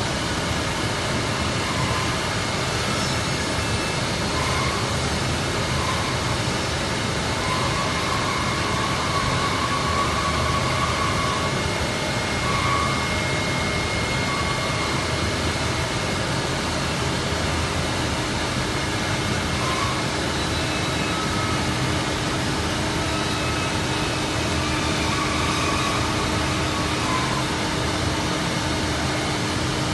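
Belotti five-axis CNC router running: a steady rushing machine noise with a constant high whine, short tones that come and go, and a low hum that joins about two-thirds of the way through.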